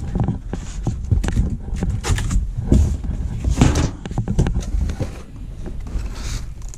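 Rummaging in a cardboard box of plastic-wrapped metal parts: irregular knocks and clicks, with brief rustles of cardboard and plastic wrapping.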